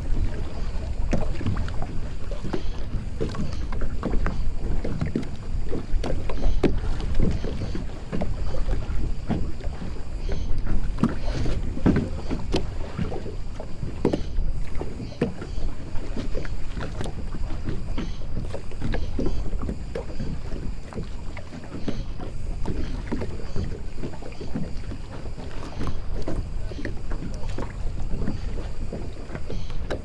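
Harbour water lapping and slapping against small moored boats and the quay, with many small irregular knocks and splashes over a steady low rumble.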